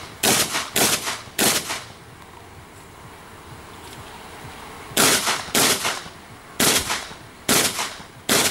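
Shotgun fired in a practical shooting stage: three shots in quick succession near the start, then after a pause of about three and a half seconds, five more shots about a second apart.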